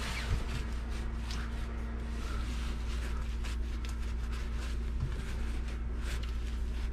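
Steady low machine hum with a faint steady tone above it, and light rustling of a cloth rag wiping down engine parts and hoses.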